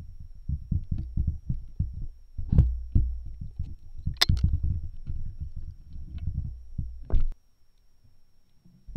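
Muffled low thumping and knocking heard through an underwater camera beneath the ice, with a few sharper clicks. It cuts out about seven seconds in.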